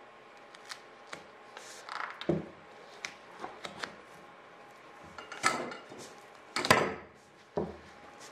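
Duct tape being wrapped and pressed around a plastic soda bottle slipped over the end of a steel pipe, giving a series of short rustling and crinkling noises. The two loudest come about five and a half and about seven seconds in.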